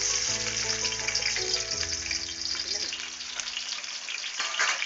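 Sliced onions sizzling steadily as they fry in hot cooking oil.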